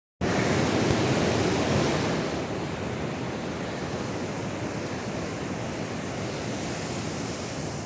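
Pacific Ocean surf: waves breaking and washing up the beach in a steady rush of water, a little louder over the first two seconds and then settling.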